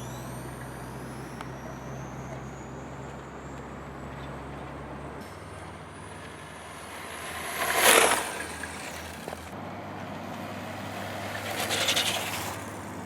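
Electric whine of an RC car's brushless motor rising as it speeds up, then the car passing close by twice, sharply about two-thirds of the way in and again more broadly near the end.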